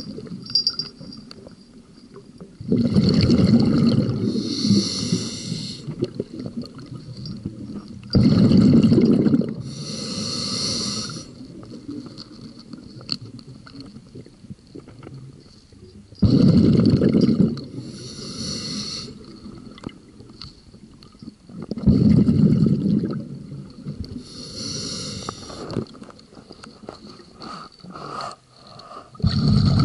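Scuba diver breathing through a regulator underwater: five loud rumbling bursts of exhaled bubbles, about every five to eight seconds, each followed by a softer hiss as the next breath is drawn.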